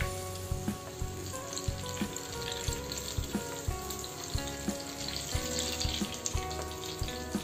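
Batter-coated green chillies deep-frying in hot oil in a small pan, the oil sizzling steadily.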